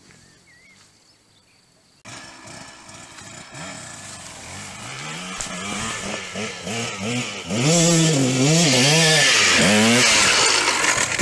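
KTM dirt bike's engine climbing a steep dirt slope, starting about two seconds in and growing louder as it nears. The revs rise and fall in quick swings during the loudest stretch near the top of the climb, as the rider works the throttle.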